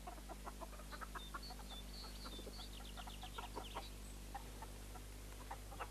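Hens clucking faintly in short, scattered calls, with small birds chirping high above them.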